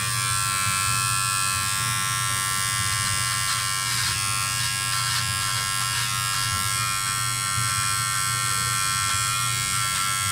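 Braun All-in-One Series 5 electric trimmer with its edge-trimmer head running in a steady buzz, cutting sideburn hair in a straight line.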